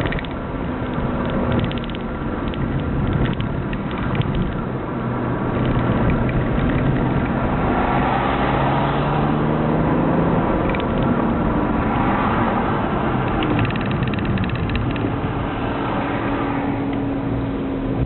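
BMW E90 3 Series diesel straight-six with a cat-back straight-pipe exhaust and no silencer, heard from inside the cabin while driving. The exhaust drone rises and falls in pitch as the revs change.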